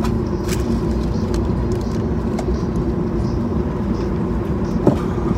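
Cabin noise of a Boeing 737-800 taxiing: a steady low rumble from its idling jet engines and the airframe rolling, with a steady hum over it. A single sharp click near the end.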